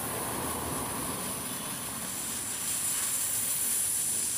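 Lit petasan teko firecracker spraying sparks from its tube with a steady hiss that grows a little louder in the second half, the burning stage before it bangs.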